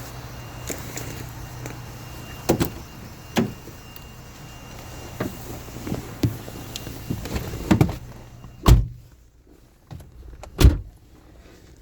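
Opel Astra H 1.4-litre engine idling with irregular sharp knocks, the knocking sound from under the engine. The engine goes quiet about eight seconds in, and two heavy thumps follow.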